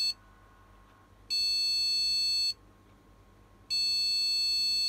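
Gigabyte H110M S2H motherboard's beep speaker sounding long, high-pitched POST error beeps, each about a second long and repeating every couple of seconds: the end of one beep, then two full beeps. It is the no-POST beep code, thought to be memory related.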